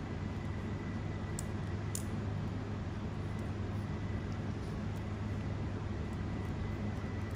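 Steady low background hum and rumble, with two faint clicks about one and a half and two seconds in.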